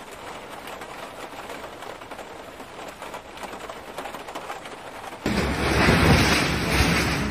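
Steady rushing noise of floodwater flowing through a flooded street; about five seconds in, a cut to a much louder, deeper rush of fast muddy water.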